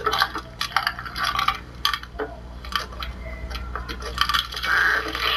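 Irregular sharp clicks and clinks of a dragon egg cracking open, a film sound effect played through a television's speaker, over a low steady hum.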